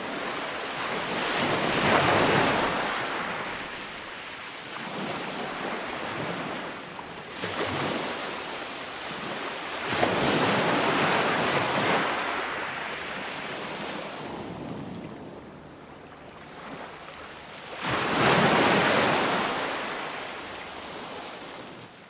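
Ocean surf: waves breaking and washing in, rising and fading in three large surges about eight seconds apart, with smaller ones between.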